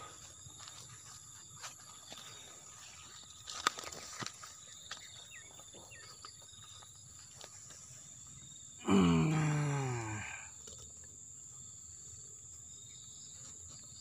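Steady high-pitched drone of insects, with a few light clicks. About nine seconds in, one loud, drawn-out wordless vocal sound of about a second and a half, falling in pitch.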